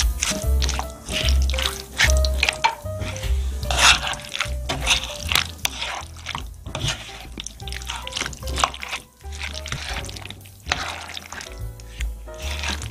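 Background music with a steady bass, over wet, squishy stirring of macaroni, chopped tomatoes and cheese with a wooden spatula in a frying pan.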